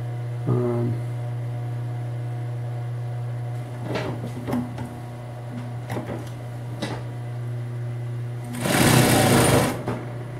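Singer 196K5 industrial lockstitch sewing machine: its motor hums steadily, with a few short clicks around the middle, then about a second of fast, loud stitching near the end.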